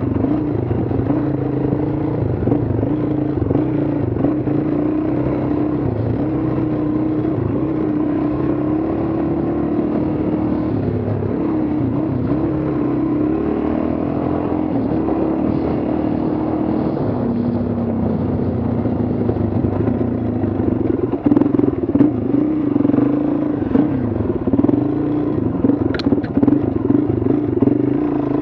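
Dual-sport motorcycle engine running on and off the throttle, its pitch rising and falling steadily. From about two-thirds of the way through it turns choppier and more uneven, with a couple of sharp clicks near the end.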